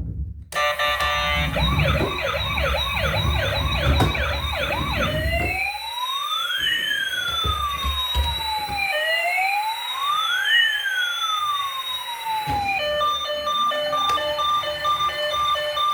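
A toy emergency vehicle's electronic siren sound chip cycling through its modes. It starts with a fast yelp for about five seconds, with a low rumble underneath. Then comes a slow rising and falling wail, and near the end a pulsing beep pattern.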